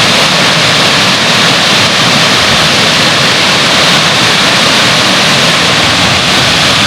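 Ebor Falls on the Guy Fawkes River: the steady, loud rush of water pouring down the falls, with no breaks or changes.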